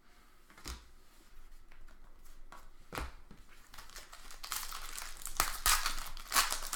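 Crinkling and tearing of a trading-card pack wrapper being handled and opened, with a couple of sharp clicks early on and the crackling growing denser and louder in the second half.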